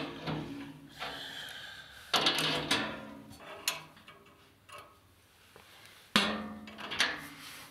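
Metal clinks and scraping from an adjustable spanner and chrome-plated brass compression fittings being worked on a radiator valve tail and copper pipe. Three louder knocks with a short ring come at the start, about two seconds in and about six seconds in, with lighter clicks between.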